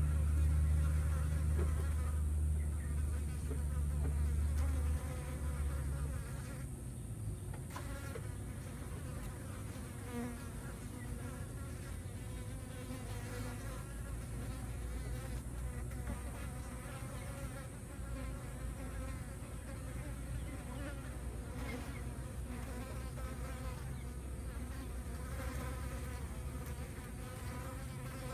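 Insects buzzing steadily in flight around a dead rat. A loud low rumble sits under the buzzing for the first five seconds, then drops away.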